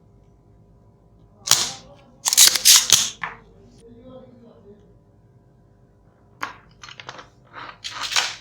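Handling noise at the workbench: a series of short, sharp clicks and scrapes in two clusters, one around the second to third second and another near the end.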